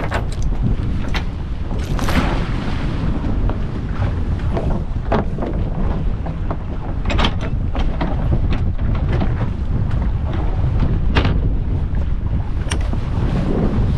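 Steady low wind rumble on the microphone on an open boat, with the anchor chain rattling and clanking over the bow as the anchor goes down near the start, and scattered sharp knocks later as the anchor rope is paid out.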